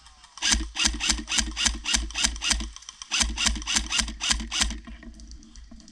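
An electric airsoft rifle firing two rapid strings of shots, about five or six a second, each lasting a second or two, with a short pause between them; its gearbox motor hums under the shots.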